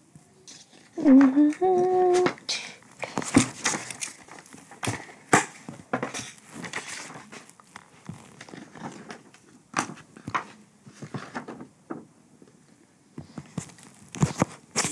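Irregular knocks, clicks and rustling from a camera and a sheet of paper being handled, with a short held vocal sound from a voice about a second in.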